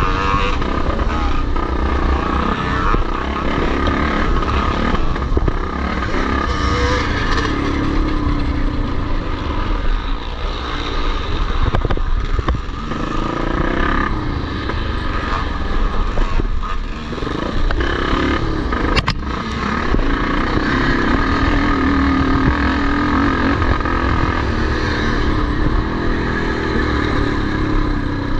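Vintage motocross motorcycles racing, several engines revving up and down over and over with no break.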